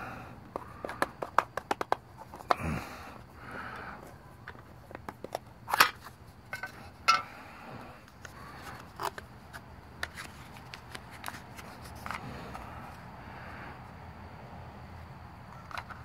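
Handling of a Zippo lighter's metal gift tin and its packaging: irregular light clicks, taps and scrapes as the tin lid comes off, the insert is handled and the lighter is lifted out.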